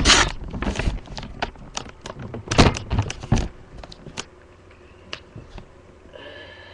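Rummaging while searching for a screwdriver: two loud bursts of rustling and clatter, then a few sharp clicks and knocks that die down.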